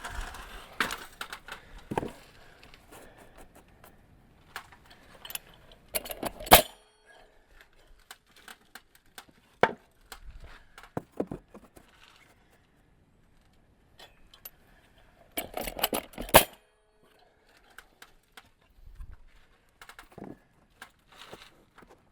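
Vevor pneumatic coil siding nailer driving nails into clapboard: a few quick loud shots about six seconds in and again about sixteen seconds in. Lighter metallic clicks and rattles come in between.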